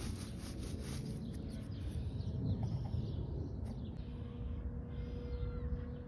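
Outdoor ambience: a steady low rumble, with a low hooting animal call about two and a half seconds in.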